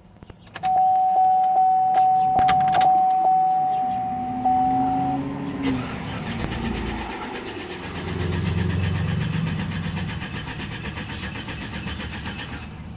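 A vehicle warning chime dings steadily, about one and a half times a second, for the first five seconds. Then the GMC Envoy Denali's 5.3 V8 is cranked on the starter, turning over for several seconds.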